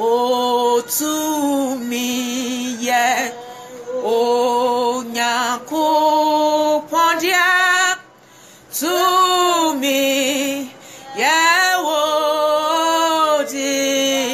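A woman singing a slow worship song without accompaniment, in phrases of long held notes separated by short pauses.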